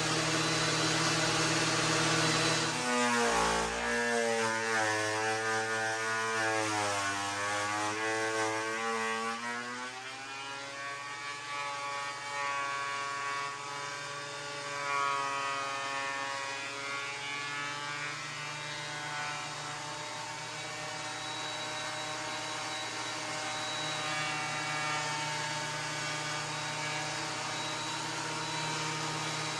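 Ridgid 13-inch thickness planer running and cutting a rough chainsaw-milled plank. Its motor pitch drops and wavers under load for several seconds after about three seconds in, then settles into a steadier hum.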